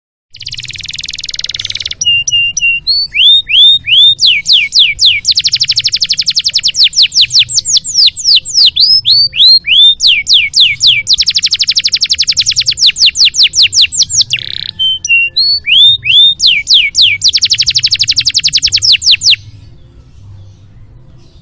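Domestic canary singing a long song: repeated downward-sweeping whistled notes alternating with very rapid, loud trills, opening with a short rasping hiss. The song stops abruptly near the end, leaving only faint sound.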